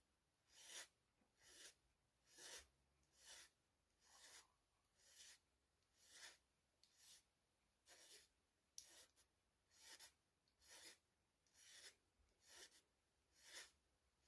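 Small hand file rasping on a freshly glued bone tip facing at the head of a cello bow, in faint, even strokes about one a second.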